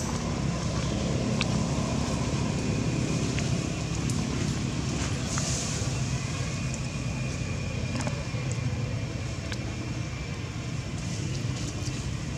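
Steady low outdoor background rumble with a few faint ticks.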